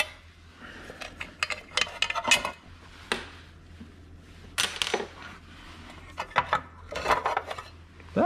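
Irregular clinks and clatters of hand tools and small metal parts being handled at a Vespa PX scooter's engine, coming in short clusters.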